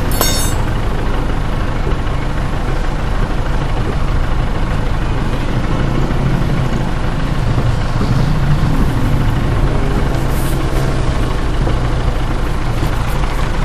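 An engine idling steadily, a loud low hum that holds an even pitch, with a short metallic clatter just after the start.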